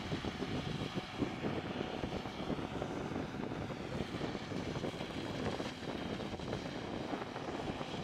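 John Deere combine harvester and tractor running side by side while the combine unloads corn into a grain cart: a steady, dense drone of engines and harvesting machinery.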